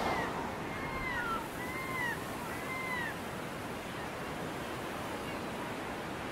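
A gull calling: a quick series of about four short, arched cries in the first half, over a steady wash of wind and surf.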